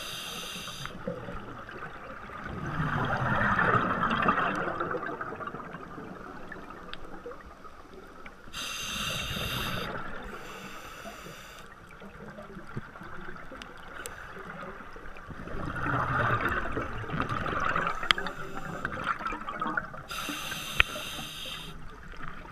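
Scuba diver breathing through a regulator underwater: a few short hissing inhalations alternate with longer bubbling exhalations.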